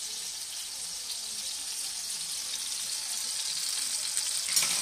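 Halved tomatoes topped with garlic sizzling steadily in a frying pan, with a single clink of a utensil against cookware near the end.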